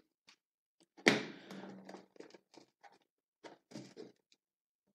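Cardboard product box handled: a single thunk about a second in, then light scrapes and taps of the cardboard moving in the hands.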